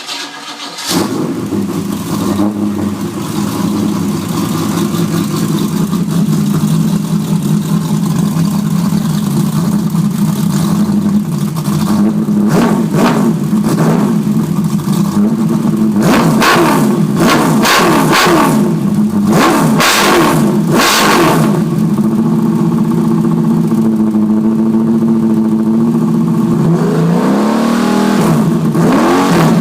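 V8 engine with a newly fitted exhaust catching about a second in, on its first start since the upgrade, and settling into a steady idle. From about 12 to 21 seconds a run of quick throttle blips makes the pitch jump up and fall back, and near the end the revs climb again.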